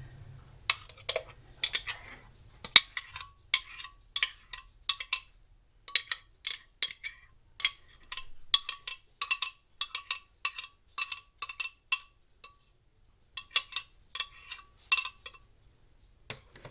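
A metal spoon scraping and tapping inside a glass blender jar to get out thick pureed soup: a long run of sharp clinks, about two a second, each with a brief ring.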